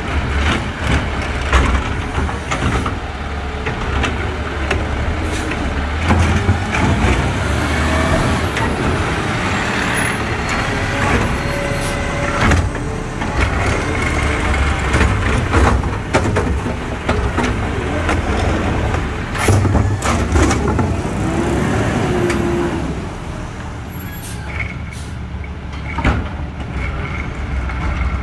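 McNeilus automated side-loader garbage truck running while its arm grabs, lifts and dumps wheeled trash carts. A steady engine drone carries a whine from the hydraulics and several bangs and clanks as the carts are shaken out into the hopper and set back down.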